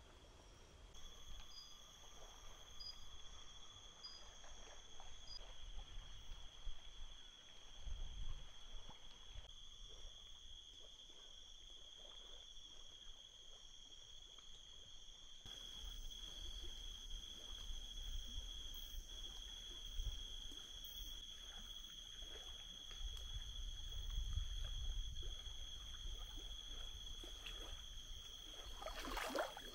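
Insects trilling in a steady high-pitched drone on two pitches at once, with a low rumble of wind on the microphone that swells and fades.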